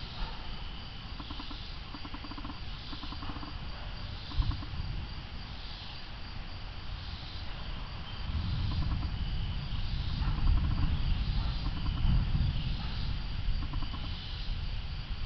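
Insects calling in a steady chorus of repeating pulsed chirps, over wind gusting across the microphone that grows louder about halfway through; a brief knock about four seconds in.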